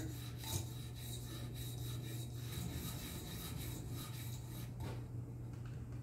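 A wetted Naniwa Chosera 400-grit stone on a guided sharpener's arm rubbed back and forth along a folding knife's steel edge in quick sweeping strokes, a soft repeated rasp. It is the coarse stage that scrubs out the old finish and lays down a fresh, even set of 400-grit scratches. The strokes stop about five seconds in.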